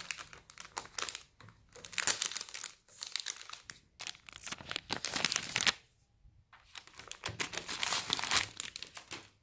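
Clear plastic wrapping being handled and pulled off a new e-reader and its box, crinkling in irregular bursts, with a pause of about a second a little past the middle.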